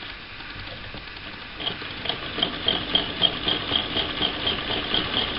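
A 1937 Frister and Rossmann transverse-shuttle sewing machine starting up about a second and a half in and stitching two fabric strips together, with an even mechanical clicking of about four stitches a second.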